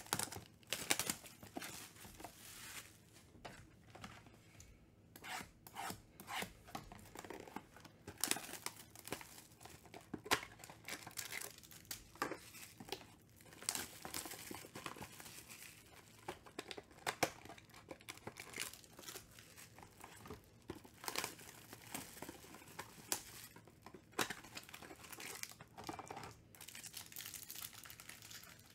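Plastic trading-card pack wrappers and box wrap being torn open and crinkled by hand, in irregular crackles and short rips, with some cardboard box handling.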